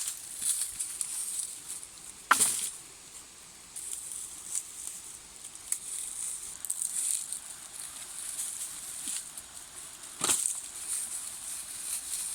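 Rustling and crackling handling noise, with two sharp knocks, one about two seconds in and one near the end.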